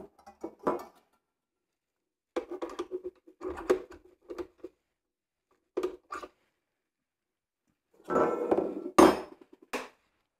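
Metal stand-mixer attachments being handled and fitted to the mixer head's tool socket: several bouts of clinks, knocks and clatter. The loudest clatter and knock come near the end.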